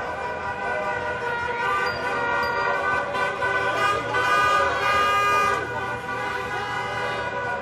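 Many car horns honking at once in celebratory football-victory honking: long overlapping blasts at different pitches, loudest from about four to five and a half seconds in.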